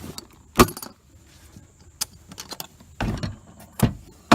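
Hands rummaging through swag inside an ammo-can geocache: a few separate sharp clacks and knocks of items and container parts, with a short rustle about three seconds in.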